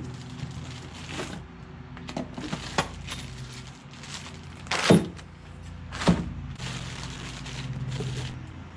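Plastic parts and packaging being handled, with scattered clicks and rustles and two sharp knocks about five and six seconds in, over a steady low hum.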